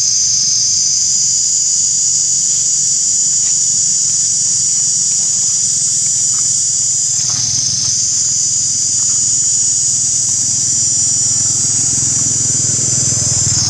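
Steady, high-pitched chorus of tropical insects droning without a break, with a brief dip about seven seconds in. A low rumble grows beneath it near the end.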